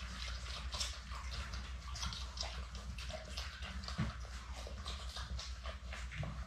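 Labrador Retriever puppies nursing from their mother: a rapid, irregular stream of wet suckling and smacking sounds.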